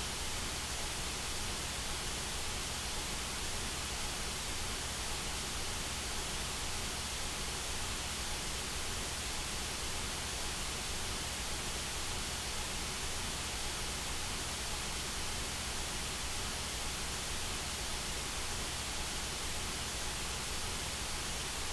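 Steady electronically generated white noise: an even hiss spread across all pitches, unchanging, with no other sound.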